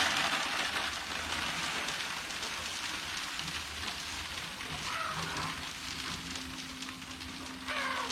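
A steady, rain-like hiss, with a few short chicken calls about five seconds in and again near the end.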